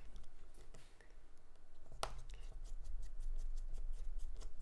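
Light clicks and ticks of a small precision screwdriver working tiny screws out of a Garmin Vivofit Jr's plastic back cover. There is one sharper click about two seconds in and a quicker run of ticks after it.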